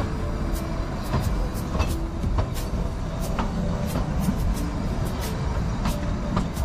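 Steady low rumble of the narrow-gauge Kalka–Shimla toy train running, with sharp clicks and rattles from the wheels and carriage coming irregularly about twice a second.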